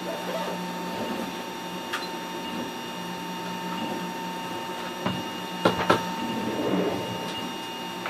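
MakerGear M2 FDM 3D printer laying down the first layer of a PLA print: stepper motors whir and buzz as the print head traces the outline, over a steady cooling-fan hum. A few sharp clicks come a little past the middle, the loudest moments.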